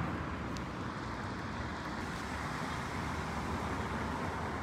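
Steady road traffic noise, a continuous low rumble with some wind on the microphone.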